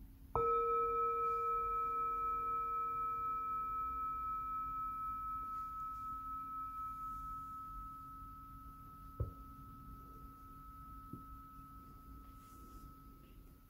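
Hand-hammered Tibetan singing bowl struck once with a wooden mallet, ringing with a clear tone and a lower and a higher overtone that fade slowly with a gentle wavering pulse. A short light knock about nine seconds in.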